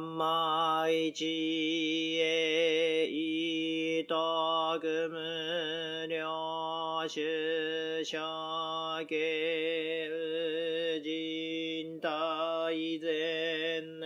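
A Jōdo Shinshū Buddhist priest chanting sutra for a temple's morning service. One voice holds long, slightly wavering tones phrase after phrase, with short breaks for breath.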